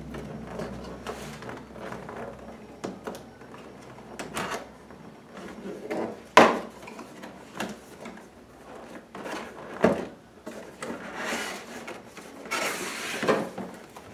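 Cardboard box being opened by hand: scattered taps and knocks of fingers working at the lid, the sharpest about six and ten seconds in, then a longer rasp of cardboard flaps rubbing open near the end.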